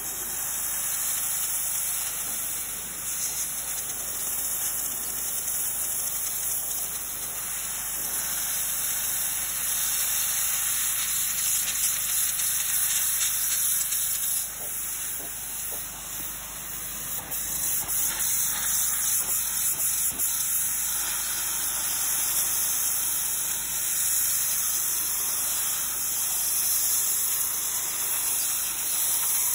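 Pressure-washer jet spraying onto brick steps: a steady hiss of high-pressure water that dips briefly about halfway through.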